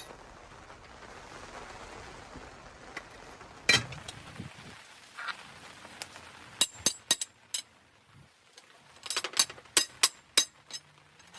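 Hammer blows on a rod driven down a motorcycle exhaust silencer, sharp metallic clinks with a short ring, knocking the drilled-out baffle sleeve loose. One hard strike a little before halfway, a few more after, then a quick run of blows near the end.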